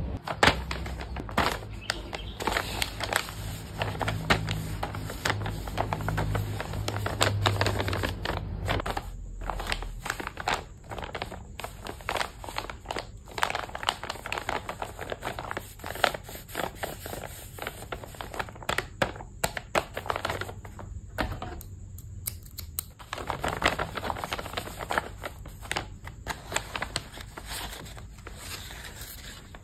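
Paper and plastic crinkling and rustling under the hands, with many irregular small clicks and crackles, typical of handling and opening a paper blind bag.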